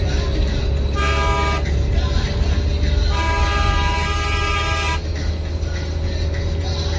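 Bus horn sounding twice from inside the cab as the bus overtakes a truck: a short blast about a second in, then a longer blast of about two seconds. The bus engine's steady low drone runs underneath.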